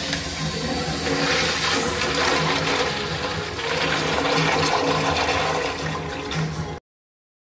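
Kohler urinal flushing: a steady rush of water running down the bowl into the drain for about seven seconds, cut off suddenly near the end.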